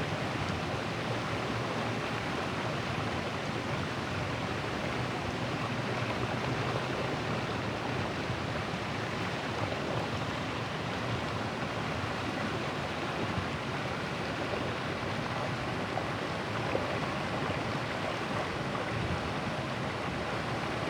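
River water rushing steadily over and around a large stone.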